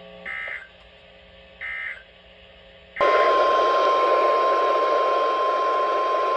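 NOAA Weather Radio over a receiver's speaker: two short high-pitched digital data bursts (the SAME alert header), then about three seconds in the loud, steady 1050 Hz warning alarm tone starts over radio static, the signal that a new warning is about to be read.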